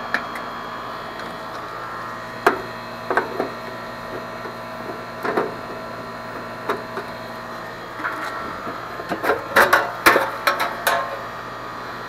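Screwdriver working the screws out of an air-conditioner condensing unit's sheet-metal control-panel cover: scattered clicks and scrapes of the tool on the screws and metal, then a quick run of sharper metal clicks and clatters near the end as the panel is worked loose.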